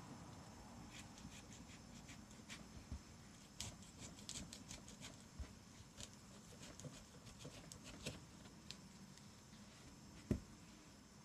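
A knife carving a hollow into the top of a black radish: faint, irregular scraping and small clicks, with one louder knock about ten seconds in.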